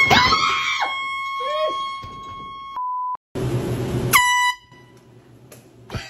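Air horn blasting, one long blast of nearly three seconds, then a second short blast about four seconds in amid a burst of noise.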